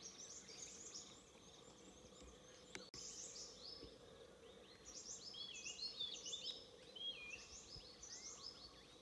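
Faint forest birdsong: several birds giving high chirps and short whistled, wavering notes, growing busier from about five seconds in. A brief click about three seconds in.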